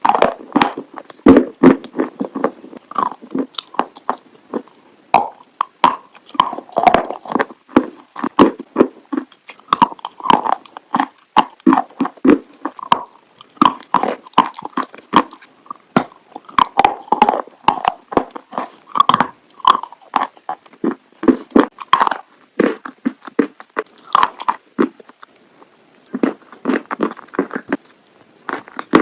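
Close-miked biting and chewing of crunchy chalk: repeated sharp snaps and gritty crunching, with a brief pause about 25 seconds in.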